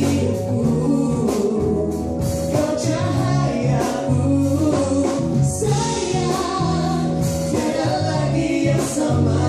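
Live pop music: a man and a woman singing together into microphones over a band with electric guitar.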